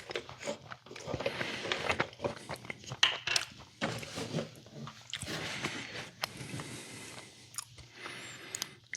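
A person biting and chewing crunchy food close to the microphone: repeated crisp crunches and clicks with wetter chewing between them.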